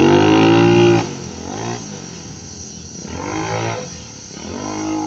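VOGE 300R motorcycle's single-cylinder engine revving hard for about a second as it pulls away, then the throttle snapping shut. It then rises and falls in short throttle bursts every second or two as the bike works through tight turns, fainter as it moves off.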